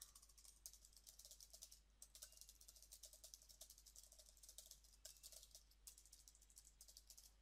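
Faint computer keyboard typing: quick, irregular keystrokes in short runs with brief pauses between them.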